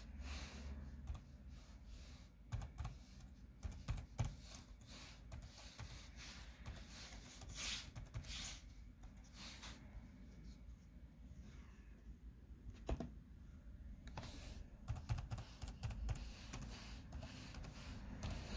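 Typing on a computer keyboard: irregular key clicks, with a few louder taps.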